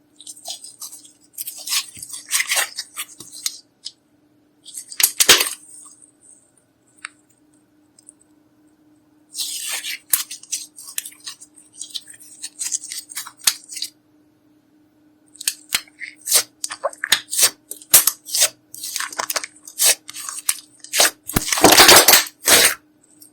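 Clear slime being squeezed, stretched and pressed by hand, giving sticky crackles and sharp popping clicks in bursts with short quiet pauses between.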